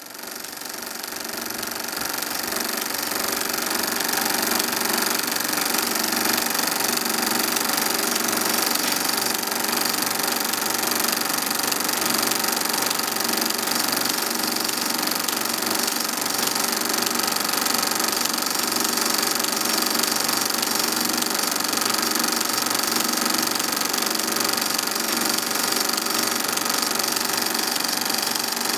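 Film projector running steadily, a continuous mechanical clatter that fades in over the first few seconds.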